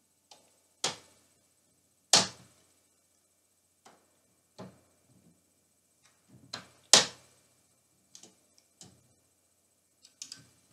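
Scattered sharp knocks and clicks at irregular intervals, with near quiet between them. The loudest strikes come about two seconds in and about seven seconds in.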